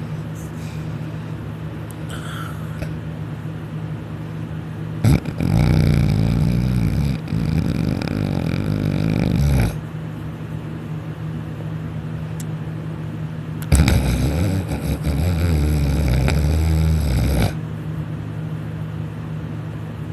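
A person snoring loudly in sleep: two long snores of about four seconds each, several seconds apart, with a third starting right at the end. Between them there is a steady low background hum.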